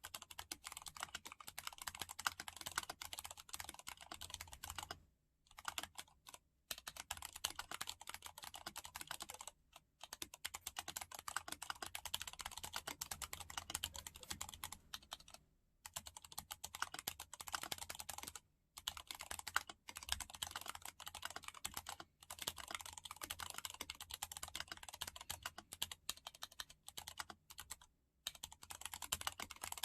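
Steady fast typing on a mechanical keyboard with Gateron Ink Yellow linear switches lubed with Krytox 105, in an aluminium case: runs of rapid keystrokes broken by a few short pauses.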